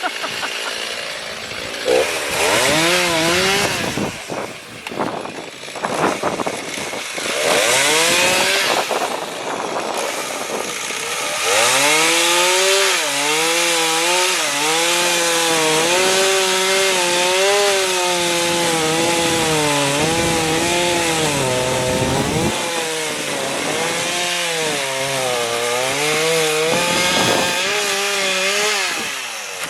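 Two-stroke chainsaw running and cutting wood, in short revs at first, then a long run from about a dozen seconds in. Its pitch sags and recovers again and again as the chain loads up in the cut.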